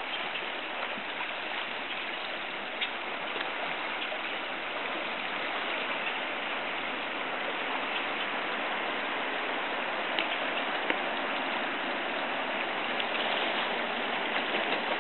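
Shallow creek water running steadily over a gravel bed, with a few faint clicks.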